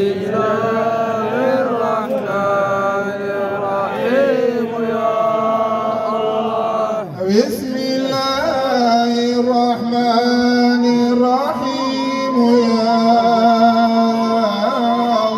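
A man's voice chanting a slow, drawn-out song into a microphone, amplified through loudspeakers, with long held notes and a brief break about seven seconds in.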